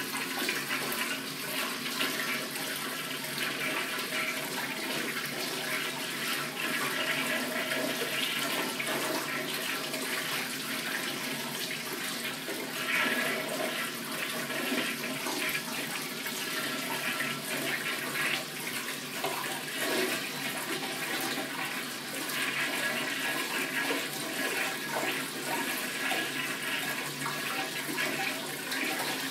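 Commercial flushometer toilet flushing nonstop, a steady rush and swirl of water into the bowl: the flush valve is not shutting off.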